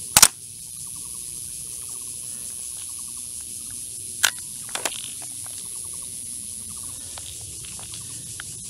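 Steady high insect buzzing and rows of short repeated chirps from the grass. Just after the start there is one loud sharp double crack from a VFC HK416D gas blowback airsoft rifle. A sharp click a little past four seconds and two lighter clicks near five seconds come as its magazine is handled.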